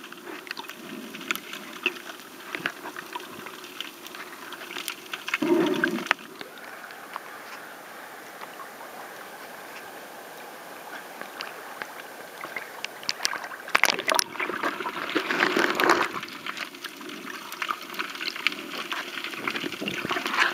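Water heard through a waterproof camera's microphone as it moves underwater: a muffled wash scattered with many fine crackling clicks. About six seconds in it breaks the surface with a splash and the sound turns to a smoother, steadier wash, then a longer run of splashing in the middle of the clip as it goes back under, and the clicky underwater sound returns.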